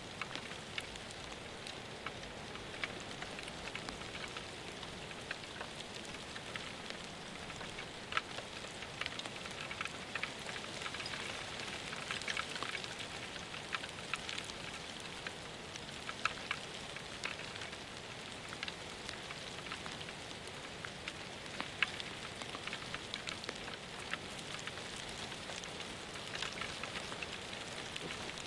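Rain falling steadily, a soft even hiss with many scattered, irregular drop ticks.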